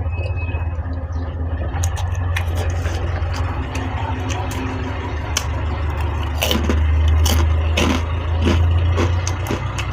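Steady low rumble of road traffic, growing louder in the second half, with many small clinks and ticks over it.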